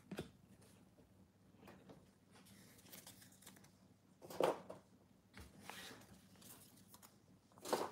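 Faint, scattered handling sounds of trading cards and foil card packs being set down and moved on a table: light ticks and rustles, the most noticeable about four and a half seconds in.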